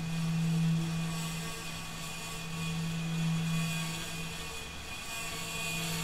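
Experimental electronic drone composition: a steady low hum, which dips out briefly near the end, under a dense layer of high sustained tones and hiss.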